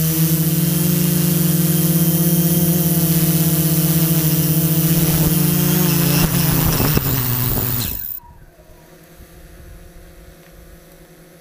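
Quadcopter drone's electric motors and propellers running with a steady multi-tone hum, heard close up from the drone itself. About eight seconds in the motors spin down and cut off after it sets down, leaving only faint background sound.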